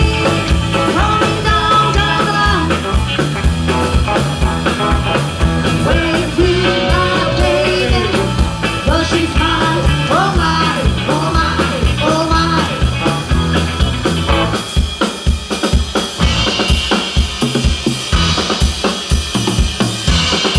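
Live Southern country rock band playing loud: a woman sings over electric guitars and a drum kit. About two-thirds of the way in the singing stops, leaving the drums beating steadily with the guitars.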